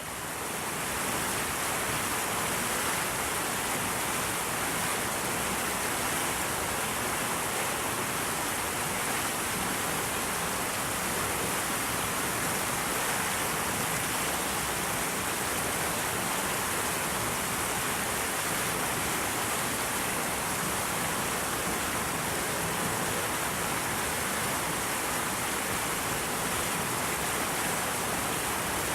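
Steady, even rushing noise with no rhythm or pitch, like falling water, fading in over the first second.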